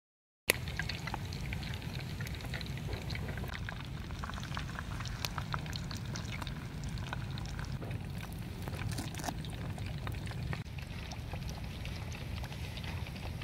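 Batter frying in hot oil in a pan: steady sizzling dotted with scattered pops and crackles, thinning out near the end.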